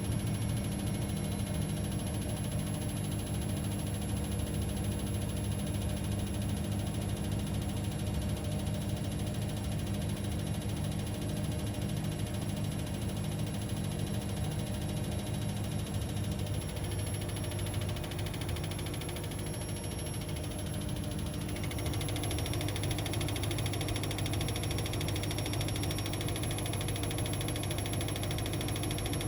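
Washing machine running with a steady motor hum. It eases off briefly about two-thirds of the way through, then picks up again.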